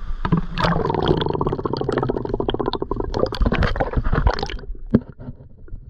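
Water sloshing and splashing close to the microphone in a rapid, crackling flutter, stopping about four and a half seconds in.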